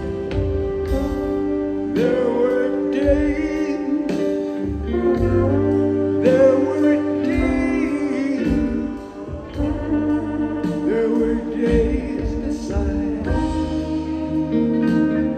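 Live rock band with a horn section and strings playing a slow instrumental passage, melodic lead lines bending in pitch over sustained chords and bass.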